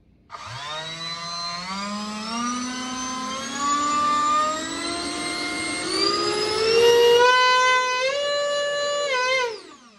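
Brushless RC ducted-fan motor spinning an Audi A4 turbocharger's compressor wheel in a 3D-printed housing: a loud whine that rises in pitch in steps as the throttle is turned up, holds at its highest, then winds down quickly near the end. The run has noticeable vibration from the wheel, which has not been balanced.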